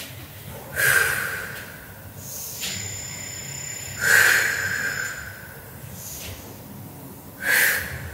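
A woman breathing hard under the strain of holding a plank: three forceful exhalations about three seconds apart, with softer breaths between them.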